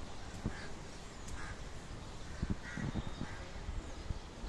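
Several crow caws, spaced through a steady outdoor background, with a few low thuds of the phone being handled.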